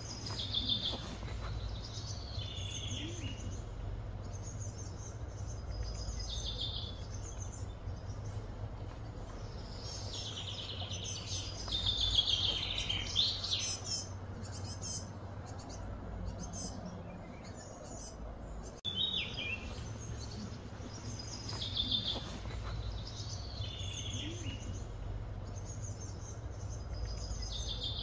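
Birds chirping over a steady low hum of background noise: a short call repeats every couple of seconds, with a denser burst of calls about ten to thirteen seconds in.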